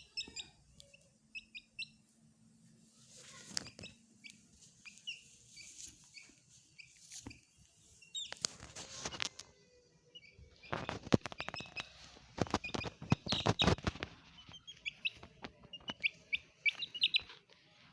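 Young chicks peeping in short, high chirps throughout. Rapid bouts of scuffling and clattering come around the middle.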